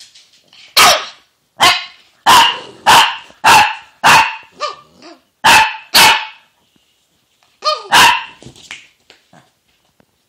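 Small Boston terrier-type dog barking sharply in a quick run of short barks, with a pause and then one more bark near the end. It is demand barking, meant to get the owner to throw its toy.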